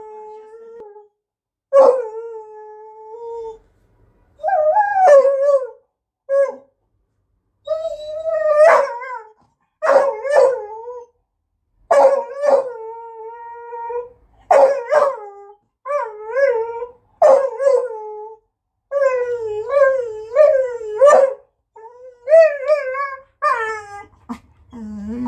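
Beagle whining and howling in a long string of calls, more than a dozen in all, each about a second long with a wavering, bending pitch and short breaks between them.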